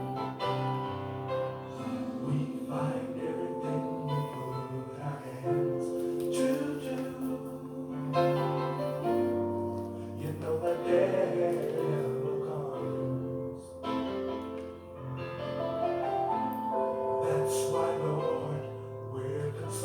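Background music of slow, sustained keyboard chords, each held for a second or two before moving to the next.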